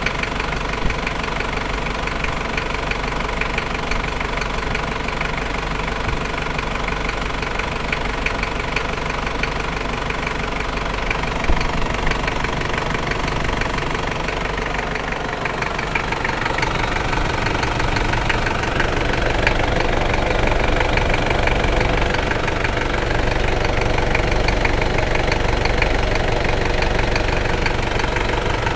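Toyota 1KZ-T four-cylinder turbo-diesel engine running, with a rapid knocking clatter over its steady note. This is the unwanted noise the owner hears from the new engine. It gets somewhat louder about two-thirds of the way through.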